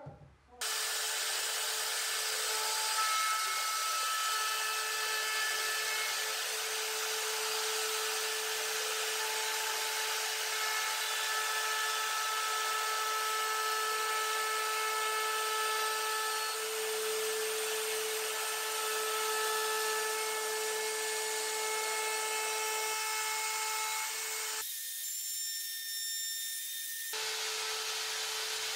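Makita plunge router running at full speed and cutting walnut along the inside edge of an oval frame, a steady high whine over the hiss of the cut. The sound thins briefly near the end.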